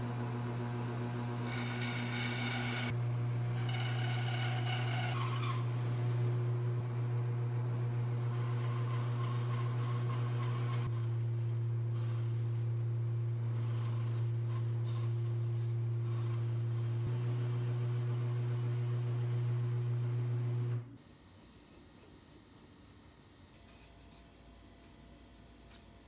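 Bandsaw motor running with a steady hum while the blade rasps through a block of tupelo wood. It stops about five seconds before the end, leaving faint pencil scratching on the wood.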